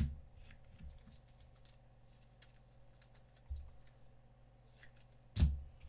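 Trading cards and packs being handled on a table: a sharp tap at the start and a louder one about five and a half seconds in, with light clicks and rustles between, over a faint steady hum.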